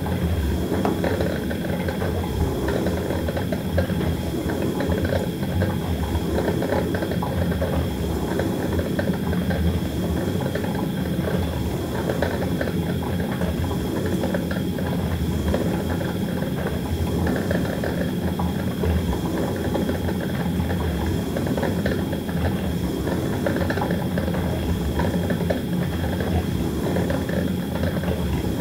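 Coffee maker brewing: a steady bubbling, gurgling rumble with a light hiss of steam, even in level throughout.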